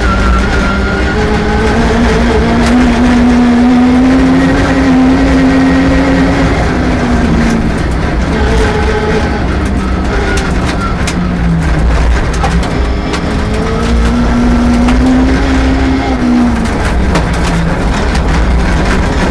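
Rally car engine running hard at high revs. Its pitch climbs for the first few seconds, holds, and drops about seven seconds in, then climbs again and drops near the end as the driver changes gear and lifts. Scattered sharp clicks sound through it.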